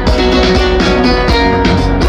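Live band music, loud and dense, with guitar to the fore over a steady drum beat.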